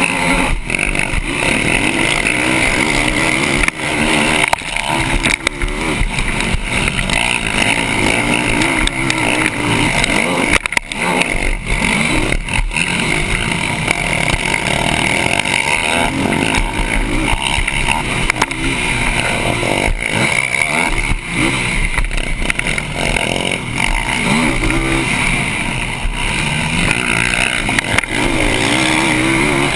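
Yamaha YFZ450R quad's single-cylinder four-stroke engine racing hard, its pitch rising and falling again and again as the throttle is worked through the corners and straights. A constant rush of noise lies over it, with scattered knocks from the bumps, as picked up by a helmet camera.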